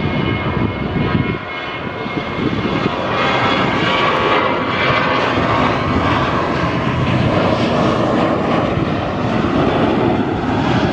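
Boeing 737-800's CFM56-7B jet engines at takeoff thrust during the takeoff roll: a loud, steady rush of jet noise with a faint high whine, growing a little louder after about two seconds.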